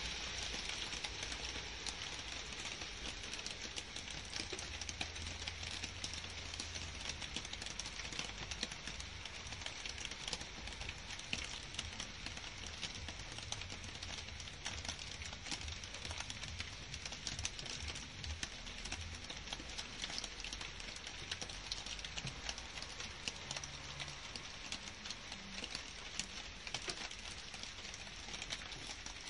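Steady rain falling on garden shrubs, grass and leaves: an even hiss dotted with many sharp ticks of separate drops, with a low rumble underneath.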